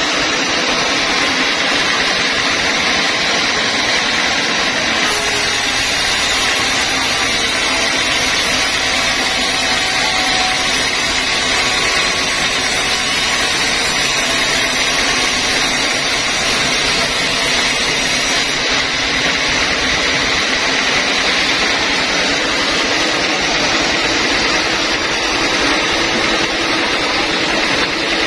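Sawmill band saw running steadily, its blade cutting through a squared timber beam with a continuous whirring hiss.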